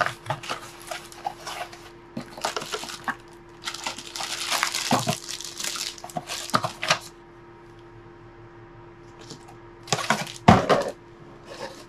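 Cardboard box and its plastic-bagged contents being handled: irregular rustling of cardboard flaps and crinkling of a plastic bag, then a quieter spell and a few sharp knocks of cardboard near the end.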